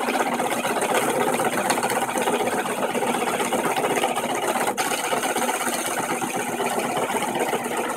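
Drill press running with a 1.5-inch bit boring slowly through a 2x4, a steady mechanical cutting sound that dips for a moment about halfway through.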